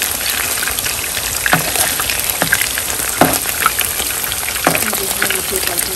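Cornflour-coated chicken pieces sizzling steadily as they shallow-fry in hot oil. A metal spoon knocks against the pan a few times as the pieces are stirred and turned, sharpest about three seconds in.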